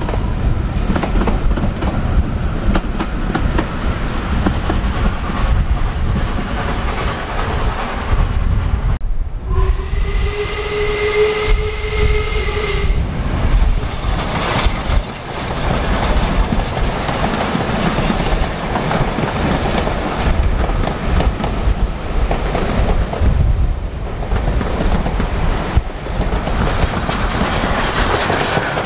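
Steam train running past close by, its wheels on the rail joints and the locomotive's working adding up to a steady heavy noise. One steam whistle blast of about three seconds, held on one note, sounds about a third of the way in.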